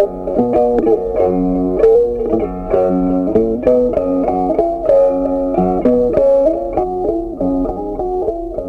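Background instrumental music: a plucked-string melody with quick, regularly picked notes.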